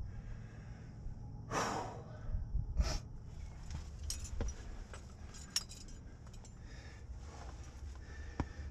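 Metal climbing gear on a harness clinking in a scatter of short light clicks, after two hard breaths or scuffs about one and a half and three seconds in, over a steady low rumble.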